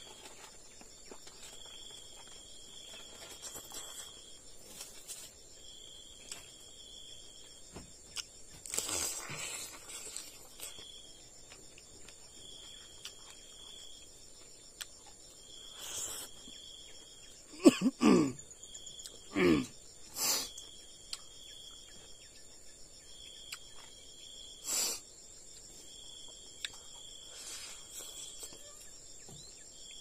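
Chorus of insects calling steadily: a continuous high-pitched buzz, with a higher call repeating in pulses about every two and a half seconds. A few short clicks and two brief sounds falling in pitch come a little past halfway.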